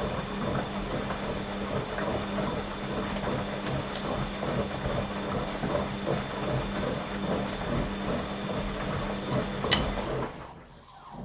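Washing machine running, its motor humming with a thin high whine over a busy mechanical rattle. A sharp click comes near the end, then the machine winds down and stops.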